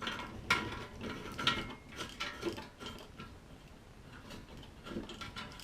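Irregular metal clicks and clinks as the parts of a metal-door latch pocket tool are handled and its screw is started by hand, busiest in the first couple of seconds and sparser after.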